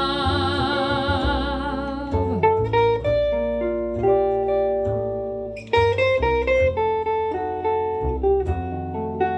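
Jazz performance: a female singer holds a final note with vibrato that ends about two seconds in, then a guitar plays a solo line of single notes and chords over bass.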